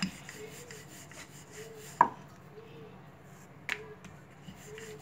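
Wooden rolling pin rolling semolina dough flat on a marble board, with a sharp knock about two seconds in and a lighter knock later.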